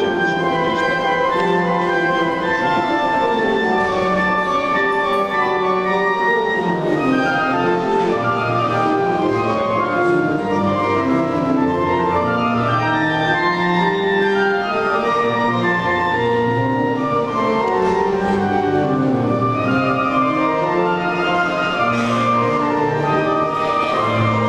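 Classical instrumental music from an ensemble, several lines of held and moving notes played without a pause.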